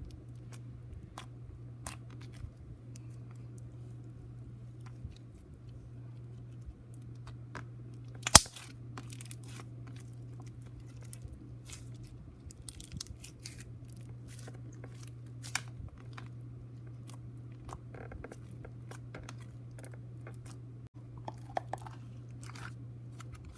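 Hands squishing and stretching slime, with scattered small sticky crackles and clicks and one louder sharp pop about eight seconds in, over a steady low hum.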